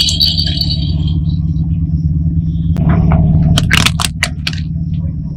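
Car engine running low and steady while a tyre rolls slowly over small rubber balloons on asphalt. There are sharp crackles and a squeak at the start, and a quick run of snaps about four seconds in as the balloons are crushed under the tyre.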